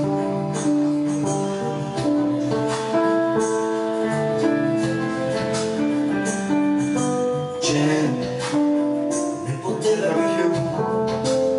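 Instrumental keyboard music: sustained chords and a melody played on a Roland E-86 keyboard and a digital piano, over a backing with a regular percussion beat.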